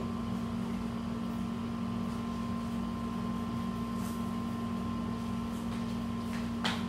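Steady machine hum with a constant low tone, like an appliance or air conditioner running in the room. A short rustle near the end as the cardboard box flap is handled.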